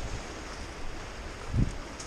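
Wind rushing across the microphone as the walker climbs the bush track, with one low thump about one and a half seconds in.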